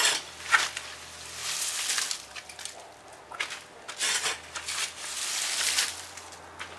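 Garden fork turning food scraps and dry leaves into a compost pile: a run of rustling, scraping strokes, about six in all.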